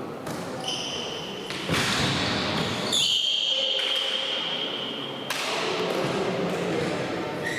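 Tchoukball play on a sports-hall court: ball thuds and sneakers squeaking on the floor, in an echoing hall. A long, steady, high squeal runs from about three seconds in for a couple of seconds.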